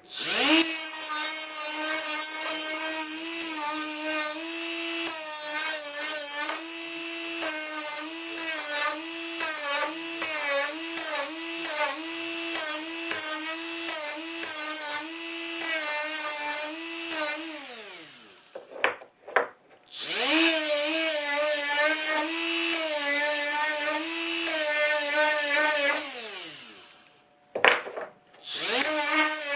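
Angle grinder beveling the edges of aluminum stock. Its motor whine dips in pitch again and again as the disc bites the metal. It winds down about 18 seconds in, starts again two seconds later, winds down again around 26 seconds and starts once more near the end.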